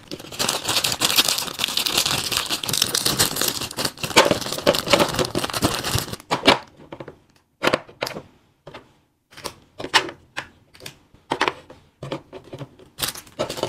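Clear plastic candy packets crinkling and rustling steadily as wax candies are unwrapped, for about six seconds. After that, scattered light taps and short rustles as the candies are set down on a cardboard tray.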